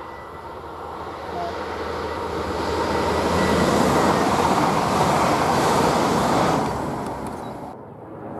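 Red double-deck electric regional train passing at speed: a steady rush of wheels on rails that swells as it nears, is loudest as the coaches go by, then fades and cuts off sharply near the end.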